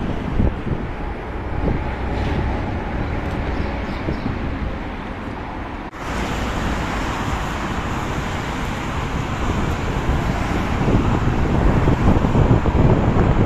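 Wind buffeting the microphone outdoors over a steady rushing noise, with an abrupt change in the background about six seconds in, growing louder near the end.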